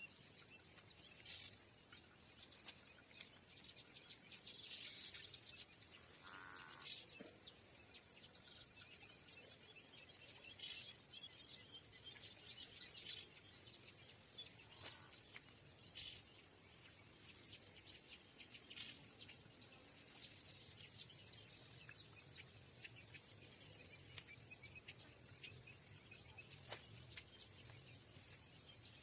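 Insects chirring in a steady high-pitched drone, with scattered short ticks and a few brief chirps over it.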